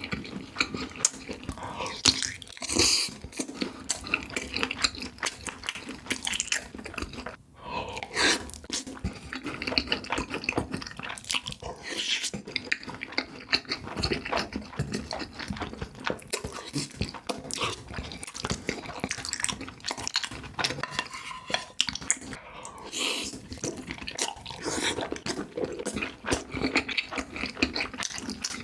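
Close-miked eating sounds of cheesy food: a dense run of wet chewing, smacking and small sticky mouth clicks, with a short break about a third of the way in.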